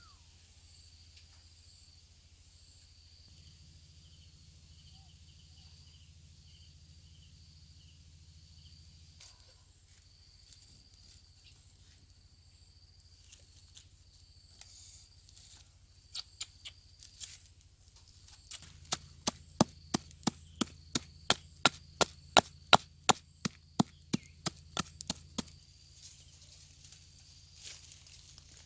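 A blade chopping on wood: a few scattered knocks, then a quick, even run of strikes at about three a second lasting several seconds.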